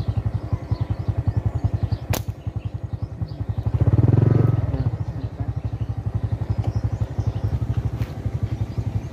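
Motorcycle engine running with an even, fast pulsing beat, briefly louder about four seconds in. A single sharp click about two seconds in.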